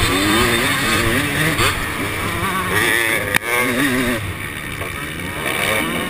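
2013 KTM 250 SX two-stroke motocross engine revving up and down as the rider works the throttle, heard from the rider's helmet. A sharp knock about three and a half seconds in, then the engine eases off for a second or so before pulling hard again.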